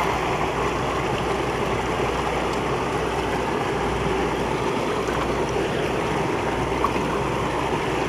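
Creek water rushing steadily over rocks in a small cascade, an even rush with no breaks.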